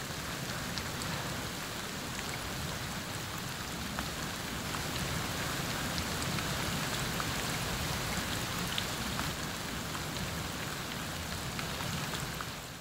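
Steady rain falling, a constant hiss with scattered individual drops ticking close by.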